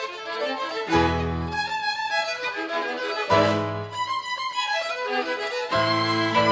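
A violin orchestra plays an instrumental interlude of the hymn between sung verses. Deep bass notes come in about a second in, again around three seconds in, and near the end.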